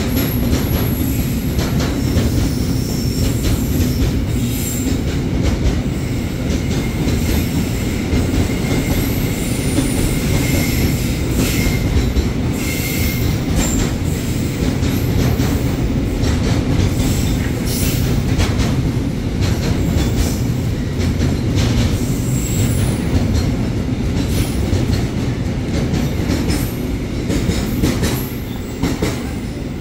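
Container freight train's flatcars rolling past, a steady heavy rumble of steel wheels on rail. Clicks come over rail joints, with thin high wheel squeals now and then.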